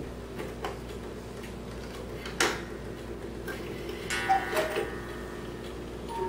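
German cuckoo clock ticking steadily while its minute hand is turned by hand, with a sharp click from the movement about two and a half seconds in and a cluster of clicks a little after four seconds. The first note of its music box sounds at the very end.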